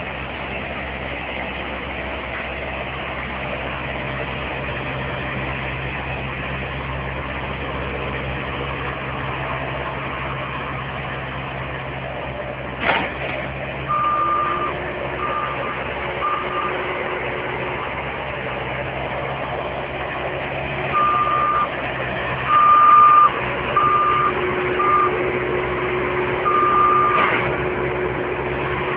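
Bobcat compact loader's engine running steadily, with its back-up alarm beeping in irregular runs from about halfway through as the machine reverses. Two sharp knocks, about 13 s and 27 s in.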